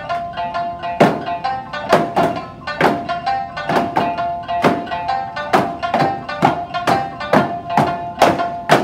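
Okinawan eisa folk music with a pitched melody, driven by a loud hand-drum stroke about every second and lighter strokes in between.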